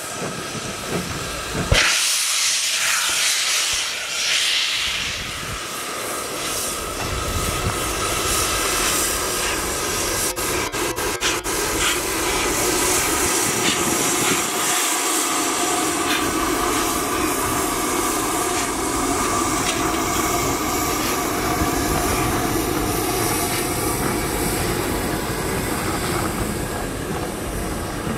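LNER B1 4-6-0 steam locomotive 61306 'Mayflower' getting under way with its train, with a loud hiss of steam starting about two seconds in and lasting a few seconds. The locomotive then works past and its coaches roll by on the rails in a steady rumble.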